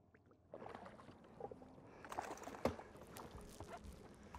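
Water splashing and sloshing against the side of a small fishing boat as a walleye is netted, with a few light knocks on the boat and one sharper knock a little past halfway.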